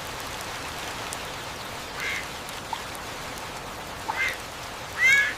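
A few short quack-like calls from a cartoon duck, the last near the end the loudest, over a steady hiss.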